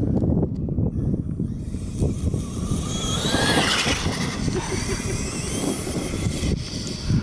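Electric Traxxas E-Revo RC truck driving fast across grass, its motor whining and climbing in pitch as it speeds past close by, loudest about three to four seconds in. A second rising whine follows as it accelerates away again, over a steady low rumble.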